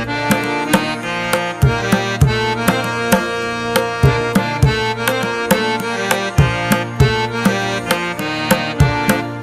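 Instrumental background music: a hand-drum beat under a sustained, held melody.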